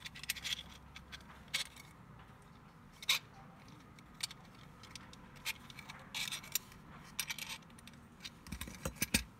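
Scattered small metal clicks and clinks from a concealed cabinet hanging bracket being handled: its metal hook and wall plate tapping against each other and the plastic housing. A few dull knocks near the end.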